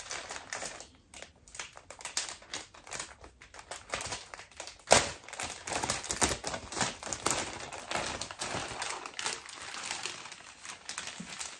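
Clear plastic garment bag crinkling and rustling as it is handled and pulled open, in quick irregular crackles, with one louder crackle about five seconds in.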